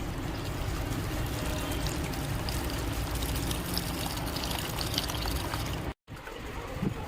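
Liquid pouring steadily, cut off abruptly about six seconds in.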